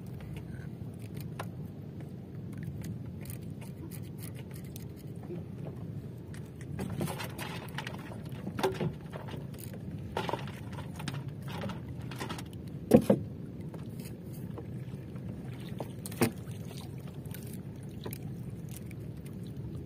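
Steady low wash of water around a small outrigger fishing boat, with scattered clicks and a few sharp knocks in the boat as fishing line and catch are handled. The loudest knock comes about two-thirds of the way through.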